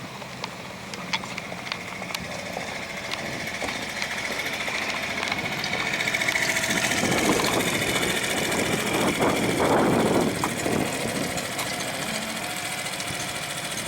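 Sailboat's auxiliary engine running at low speed, growing louder for a few seconds in the middle and then easing back.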